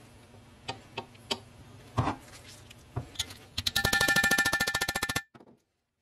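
Metal clicks and clacks as the restored brick carrier's hinged jaw and handle are worked: single sharp clicks, one heavier clack about two seconds in. Then a loud, very fast rattling buzz with a ringing tone lasts about a second and a half and cuts off suddenly.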